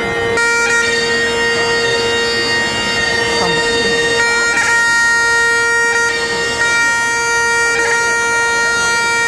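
Great Highland bagpipe playing a tune: the drones sound steadily under the chanter's melody, which comes in about half a second in and moves between notes.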